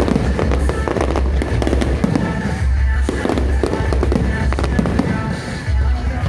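Aerial firework shells bursting in quick succession, with many sharp bangs and crackles over a heavy low rumble, while music plays loudly alongside.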